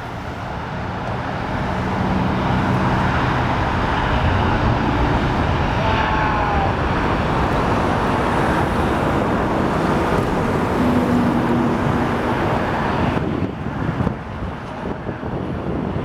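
Jet blast from an Airbus A380-861's four Engine Alliance GP7200 turbofans at takeoff power, a loud rushing roar that blasts the microphone with wind. It builds over the first two seconds, holds steady, then eases and turns gusty about thirteen seconds in.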